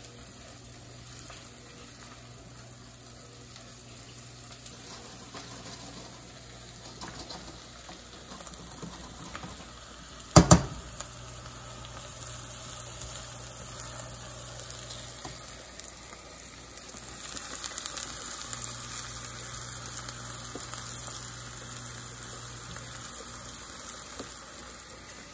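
Onions and dry spices sizzling in a pan over medium heat while being stirred constantly, softening rather than browning. One sharp knock about ten seconds in.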